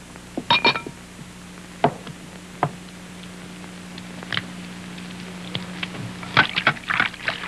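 Scattered short clicks and knocks from greased hands kneading food in two casserole dishes, more frequent about six seconds in, over a steady low hum.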